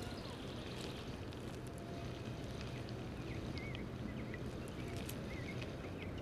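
Lake ambience heard from a kayak: a steady soft wash of water and breeze with a faint low hum, and faint bird chirps scattered through the middle.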